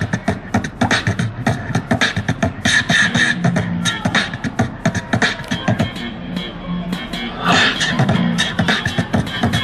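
Beatboxing into a handheld microphone through a small amplified speaker, a fast, steady run of vocal kick and snare sounds, with an electric bass guitar playing low held notes along with it.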